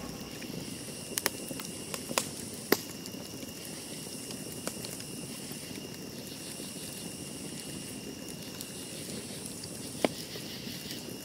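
Faint steady hiss with scattered clicks and pops, the loudest about three seconds in, like the surface noise of a record.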